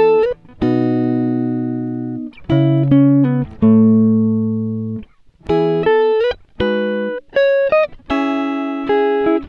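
Background music on a clean-toned guitar: slow single notes and chords, each plucked and left to ring out and fade, with a few notes bent upward in pitch.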